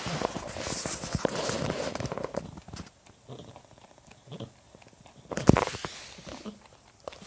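Pet rabbit wheezing as it breathes, the faint wheezy breaths a sign of a respiratory problem. Rustling noise fills the first couple of seconds, and a sharp knock comes about five seconds in.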